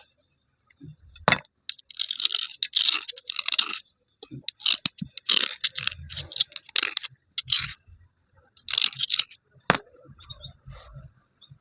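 Broken slate pencils crunching and scraping in a series of short gritty bursts, with two sharp snaps, one about a second in and one near the end.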